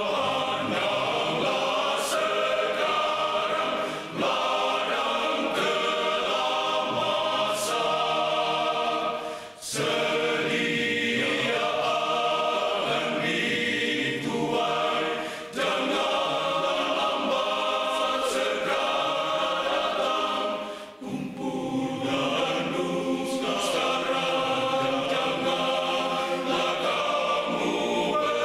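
Male choir singing together, the phrases broken by short breaks about every five to six seconds.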